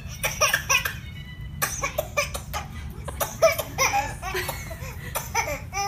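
Baby laughing in a run of short giggles and squeals, the pitch bending and falling on each burst, over a steady low hum.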